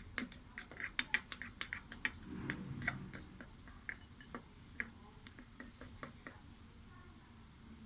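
Stirring utensil clicking against a bowl while mixing a thick baking soda and water paste, in quick irregular taps that thin out after about four seconds.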